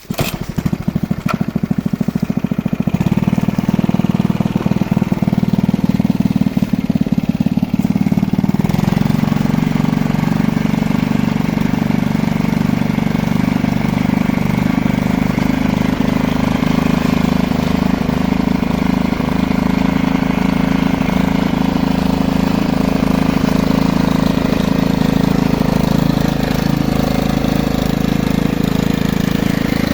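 A drilling rig's engine starts abruptly and runs steadily and loud. Its sound changes about three seconds in and again about eight seconds in, then holds.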